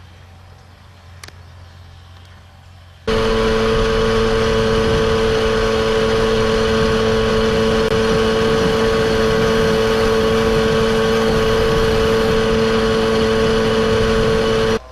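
Small moped engine running flat out at a steady high pitch, cutting in abruptly about three seconds in after a quieter stretch.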